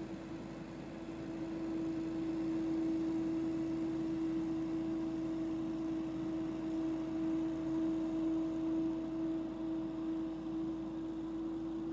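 Billy Goat P2000 stand-on leaf blower running steadily: one constant tone over a rushing hiss of air and engine.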